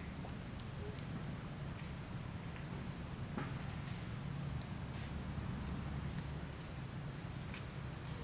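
Insects chirping steadily, high-pitched, with a regular pulsing chirp, over a steady low rumble and a few faint clicks.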